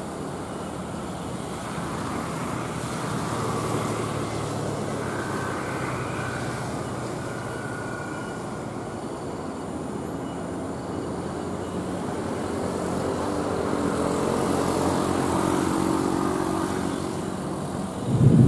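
Heavy container truck's diesel engine labouring as the truck crawls up a steep grade, mixed with passing traffic; the engine note grows louder in the second half. A sudden loud low rumble comes right at the end.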